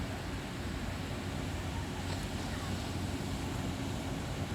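Steady low engine rumble with wind noise over it, the level even throughout.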